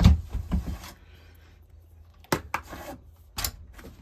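Handling noises at a bicycle handlebar as the throttle cable and zip ties are worked free: a loud clatter of knocks at the start, then short clicks and rattles about two and a half and three and a half seconds in.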